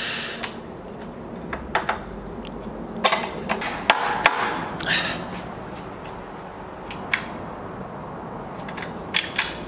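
Scattered metal clicks and knocks as a retaining pin is fitted at a Yamaha SR250's lower engine mount, with a few mallet taps driving it in about three to five seconds in and more clicks near the end as it is secured.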